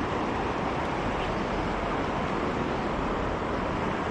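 River water rushing steadily over a riffle, an even wash of noise with no breaks.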